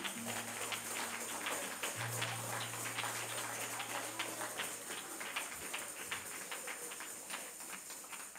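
Congregation's soft praise: quick hand clapping and jingling tambourines, with a low held note underneath for the first five seconds or so.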